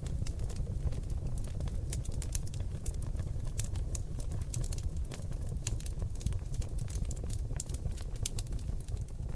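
Seasoned oak logs burning in an open fireplace: rapid, irregular crackles and pops over a steady low rumble.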